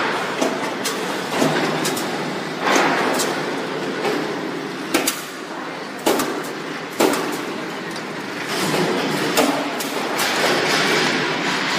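Sheet-steel bracket production line running: a steady machine din with a hum, broken by sharp metal clanks at irregular intervals of about a second or two from the punching and cutting stations.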